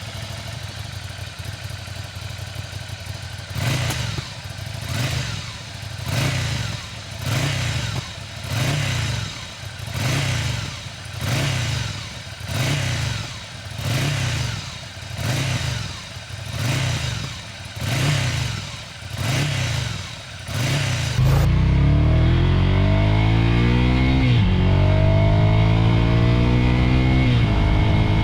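Ducati Scrambler 800's air-cooled L-twin breathing through a titanium header pipe and road-legal slip-on silencer: idling, then blipped about every second and a quarter, around fourteen short revs in a row. About three-quarters of the way through it turns louder and accelerates through the gears, its pitch rising in sweeps and dropping sharply at two gear changes.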